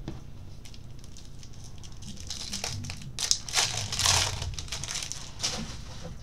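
A foil baseball card pack wrapper being torn open and crinkled by hand. The crackling comes in a run of bursts, loudest about halfway through, then dies down as the cards come out.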